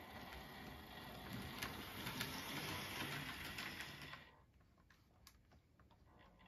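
HO scale CSX diesel model locomotive running along the track: a small electric motor and gear whir with a few clicks from the wheels, dropping away sharply about four seconds in as it runs off.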